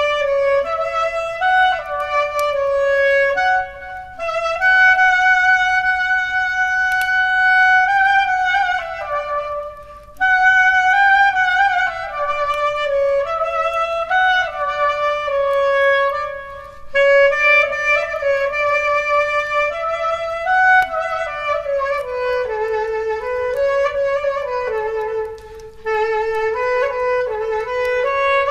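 Solo clarinet playing a slow melody of long held notes that step and slide between pitches, with a few short pauses.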